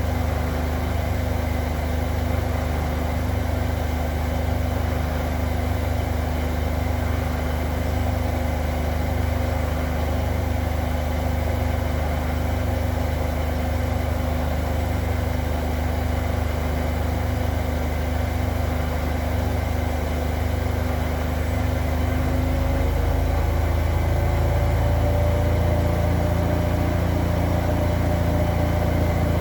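Zanker EFX 4875 washing machine in its final spin at 1800 rpm: a steady motor hum and drum rumble. About three-quarters of the way through, the pitch rises and it gets a little louder as the drum speeds up.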